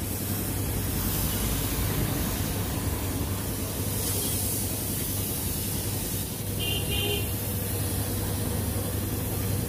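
Compressed-air paint spray gun hissing steadily as it sprays automotive paint, over a steady low hum.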